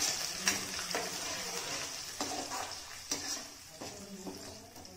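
Freshly added wet ground masala paste sizzling in hot oil in a steel kadhai while a steel ladle stirs it, scraping and knocking against the pan several times. The sizzle fades over the few seconds as the paste settles into the oil.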